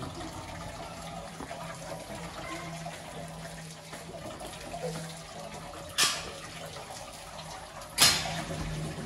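Kitchen tap running cold water over half-boiled potato chunks in a plastic colander to cool them. Two sharp knocks near the end, the second louder.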